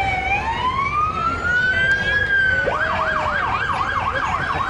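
Emergency vehicle siren in a slow wail, falling and then rising in pitch, switching about two and a half seconds in to a fast yelp of about four rises a second.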